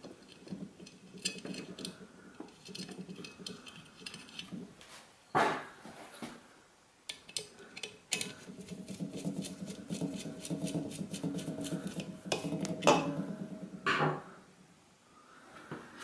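Small metallic clicks and rattles of hands and a tool working the fridge compressor's start relay, overload and wire connectors, with louder knocks about five, thirteen and fourteen seconds in.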